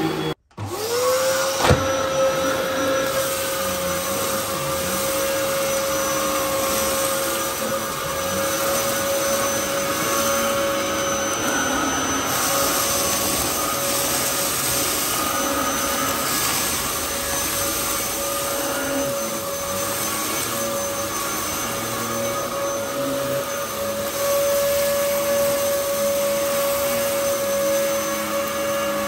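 Dyson DC07 Animal upright vacuum cleaner's motor spinning up to a steady whine about half a second in, with a sharp click soon after. It then runs steadily while sucking up crushed cornflakes from carpet.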